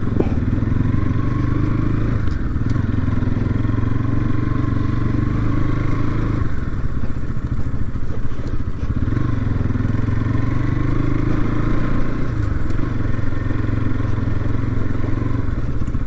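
Motorcycle engine running while being ridden over a rough dirt track, its note dipping and picking up again several times.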